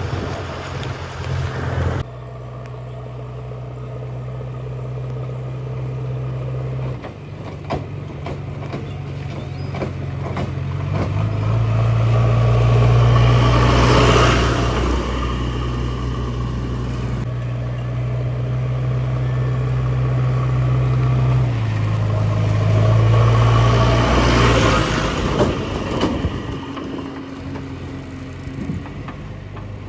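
Diesel engine of a JCB 3DX backhoe loader running while it loads mud. Its engine speed steps up twice to a louder, higher note for several seconds and then drops back.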